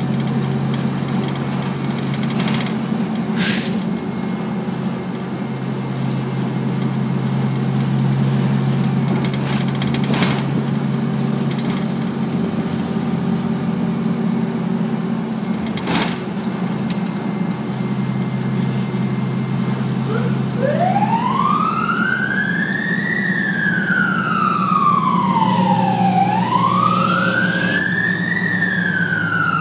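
Fire truck engine running steadily while driving, heard from inside the cab, with a few sharp clicks. About twenty seconds in, a fire apparatus siren starts wailing, rising and falling slowly in pitch, about three seconds up and three seconds down.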